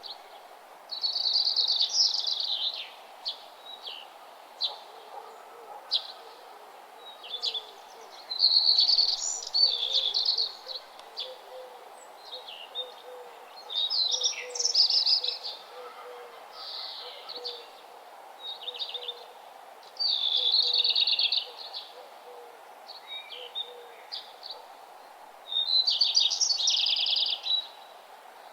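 A songbird singing a bright, high, rapid phrase of about two seconds, repeated about every five to six seconds, with short chips in between, over a faint steady background noise.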